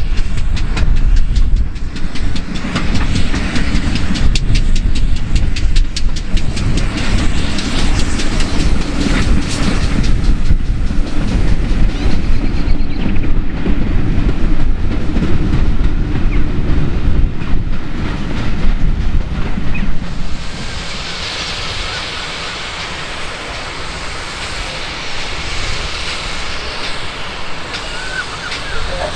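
GWR 57xx-class pannier tank locomotive running past with its train of coaches, the wheels clicking over the rail joints as the carriages roll by. About two-thirds of the way through this gives way to a quieter, steady hiss of steam from a pannier tank standing still.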